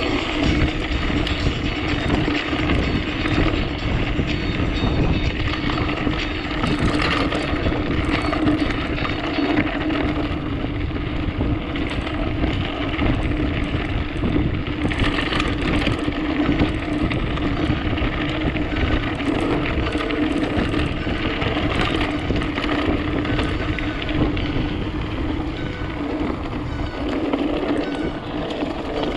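Mountain bike ridden along a dirt trail: steady tyre noise with frequent rattles and knocks from the bike.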